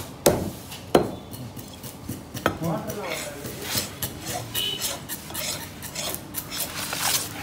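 Two sharp knife strikes on a wooden chopping block, then a run of light metallic clinks and clatters from stainless steel bowls being handled, with a brief ring about halfway.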